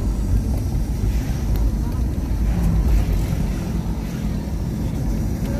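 Steady low rumble of a car in motion, with road and wind noise and no distinct events.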